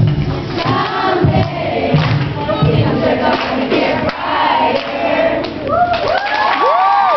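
A group of children singing with a backing track. Near the end the young audience starts cheering and whooping.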